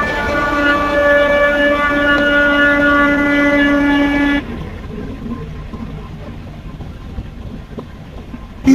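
Steady, loud, pitched machinery drone on a fishing vessel's deck, like a train horn held steady. It cuts off suddenly about four seconds in, leaving a quieter, even rumble of machinery and sea.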